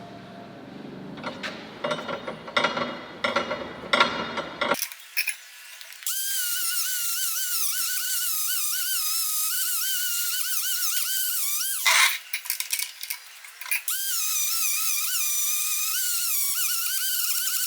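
Metal parts clinking and knocking for the first few seconds. Then a small power tool whines steadily for about six seconds, its pitch wavering under load. A couple of seconds of clinks follow, and the whine starts again.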